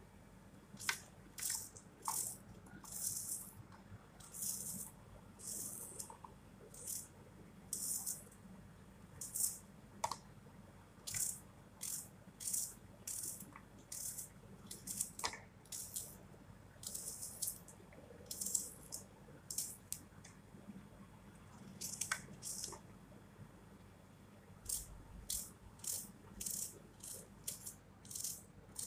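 Small red onions being cut by hand with a small knife: a run of short, crisp crunching and rustling sounds, roughly one or two a second, with a few sharper clicks and a brief lull near the end.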